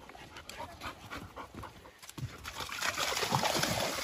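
A dog panting softly, then from about two and a half seconds in, water splashing steadily as it wades into a shallow stream.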